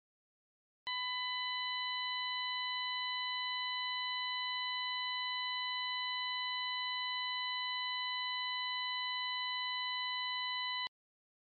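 A steady 1001 Hz test tone from a smartphone tone-generator app, played through the phone's speaker with clear overtones above it. It switches on with a click about a second in and cuts off with a click near the end.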